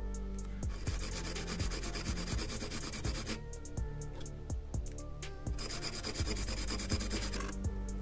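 A small part gripped in needle-nose pliers being rubbed against an abrasive scouring pad, a scratchy sanding sound in two stretches of a few seconds each with a pause between. Background music with a steady beat plays throughout.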